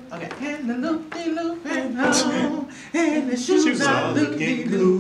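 Men's voices singing a cappella, with held, wavering notes and no instruments.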